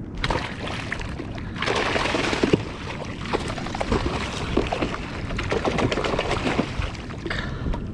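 Water splashing and sloshing around a kayak, with scattered knocks and clicks on the hull as a freshly caught yellowfin tuna is handled aboard; a louder burst of splashing comes about two seconds in.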